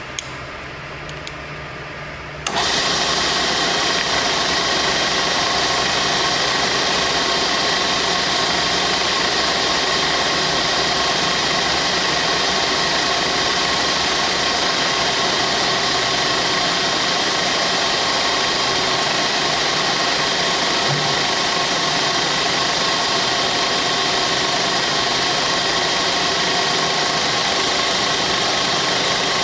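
Comet 9" x 42" vertical milling machine's spindle running. After a click near the start, the sound comes on sharply about two and a half seconds in. It then runs steadily at speed with a constant whine.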